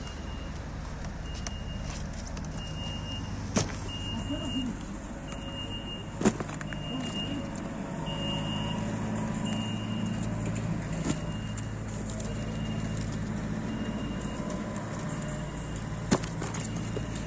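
A vehicle engine running with a steady low hum, under a short high beep repeating about every 0.7 s. A few sharp knocks as eggplants are dropped into a cardboard box.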